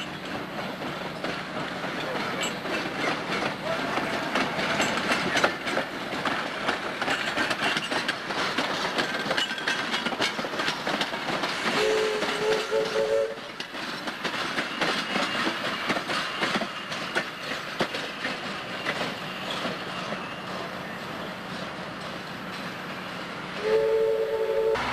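Antique balloon-stack steam locomotive running past, its wheels clicking over the rail joints. Its whistle gives a short blast about halfway through and sounds again near the end.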